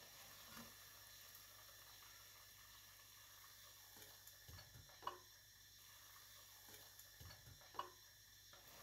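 Near silence: a faint steady hiss with a few soft clicks, and two slightly sharper ticks about five and nearly eight seconds in.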